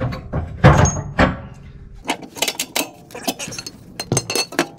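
Metal clinking and knocking from steel parts and hand tools being handled: a few heavier knocks in the first second or so, then a run of quick, irregular sharp clinks.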